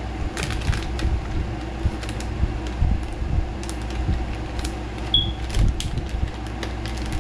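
Plastic soft-bait package crinkling and crackling in irregular clicks as it is handled and opened, over a steady low hum.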